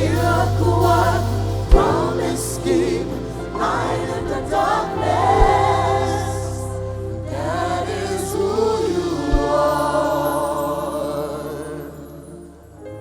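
Gospel choir singing over a sustained band accompaniment, with a few low drum hits, the music fading down near the end.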